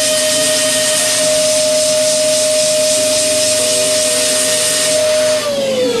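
DATRON high-speed milling spindle running with a steady high whine while its end mill cuts a metal flange, with a dense hiss of cutting over it. Near the end the whine slides down in pitch and the cutting hiss drops away as the spindle winds down.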